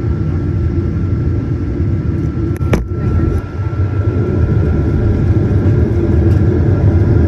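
Cabin noise aboard a Boeing 737-900ER: a steady low rumble of its CFM56 jet engines and airframe with a faint steady whine, and one sharp click about three seconds in.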